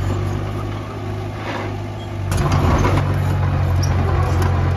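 Diesel engine of heavy earthmoving machinery running steadily; it eases off slightly, then picks up louder a little over two seconds in, with occasional knocks and clatter.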